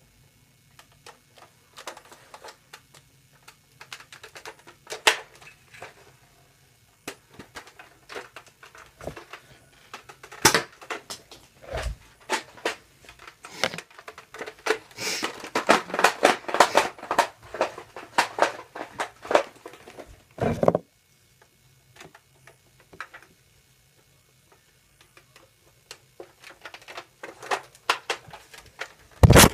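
A toy foam-dart blaster and darts being handled close to the microphone: irregular plastic clicks, taps and rattles, thickest in the middle, with a few louder knocks and a quieter stretch about two thirds of the way through.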